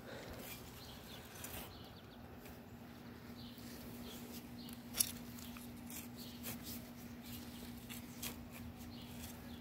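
Small hand spade cutting and scraping into garden soil around the base of a tomato plant: faint scattered scratches and crunches, with one sharper tick about five seconds in. A steady low hum runs underneath from about two seconds in.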